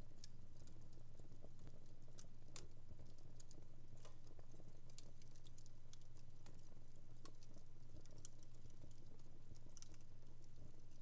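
Wood fire in a home fireplace crackling: irregular sharp pops and snaps, a few per second, over a steady low hum.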